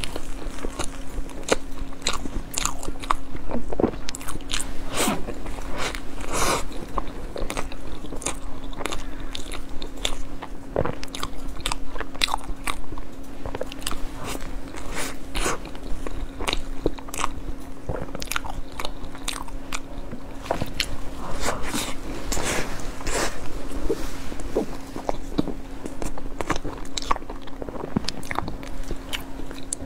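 Close-miked biting and chewing of a flaky scallion bread roll: many small, irregular crackling clicks and wet mouth sounds throughout. A faint steady hum runs underneath.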